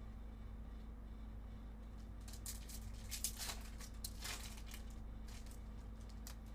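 Trading cards being handled and slid over one another: a scattered series of short rustles and crisp clicks, over a steady low electrical hum.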